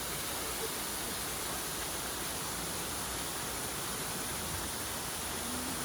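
Bigar Waterfall's water pouring over the rock face, a steady, even rushing.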